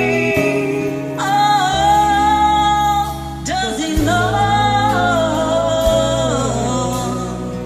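Women singing a karaoke duet over a backing track, holding two long notes with vibrato.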